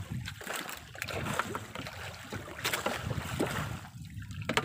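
Wind buffeting the microphone and sea water sloshing against a small outrigger boat's hull, with a few light knocks.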